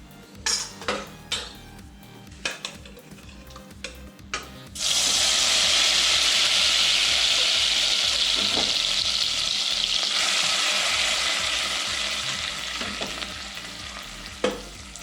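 A few clinks of a spoon against a pot, then about five seconds in a loud sizzle starts suddenly as chicken in its gravy goes into a pot of hot ghee. The sizzle holds steady, then slowly dies down over the last few seconds.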